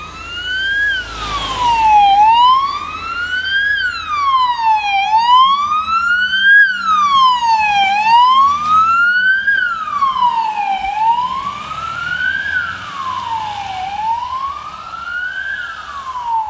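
Electronic wail siren of a fire service Isuzu D-Max pickup on an emergency run, its tone sliding slowly up and down about once every three seconds. A brief rush of road noise comes about a second in.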